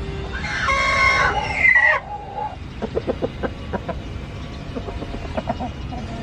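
Rooster crowing once, a single crow of about a second and a half that breaks off sharply around two seconds in, followed by two short runs of quick chicken clucks.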